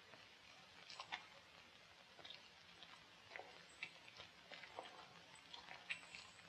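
Faint, irregular footsteps and small clicks on a stone floor, over quiet room tone.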